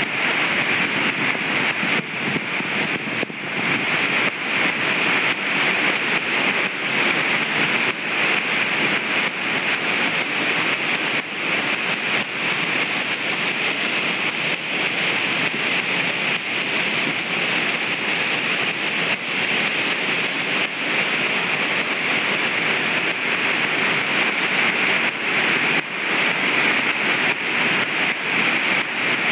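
Waterfall pouring, a steady, even rush of falling water with no change throughout.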